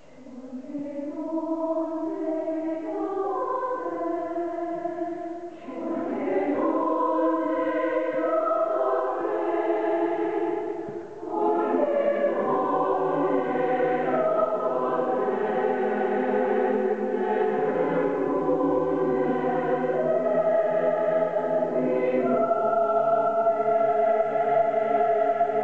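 Large mixed choir singing in sustained chords, coming in just after the start. Two short breaks between phrases about six and eleven seconds in.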